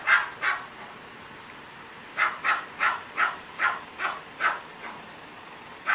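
Small dog barking in short yaps: two at the start, then a quick run of about eight, roughly three a second, from about two seconds in.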